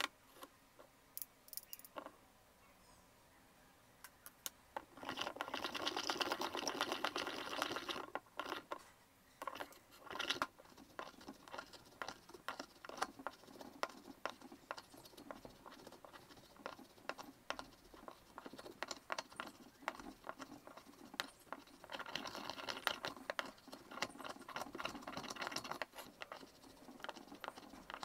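Small ceramic pestle grinding pigment in a small ceramic mortar: gritty scraping with many small clicks, rising into two longer stretches of steady, louder grinding, about five seconds in and again about twenty-two seconds in.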